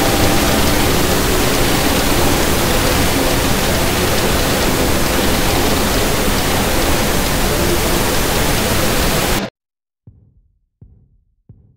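Loud, steady static hiss with no tone in it, which cuts off abruptly about three quarters of the way through. A soft, low drum beat then starts, a little more than one beat a second.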